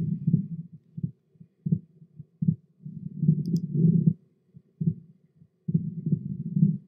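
Heartbeat picked up by the MedWand digital stethoscope on the centre of the chest and heard through the telemedicine link as repeated dull low thumps. Two longer low rumbles come around the middle and near the end.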